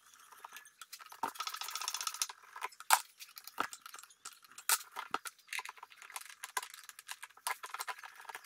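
Metal hand tools clinking and rattling against the engine as the fuel tank is unbolted from a Solex 3800 moped engine, with a quick run of socket-ratchet clicks about one to two seconds in and scattered single clinks after.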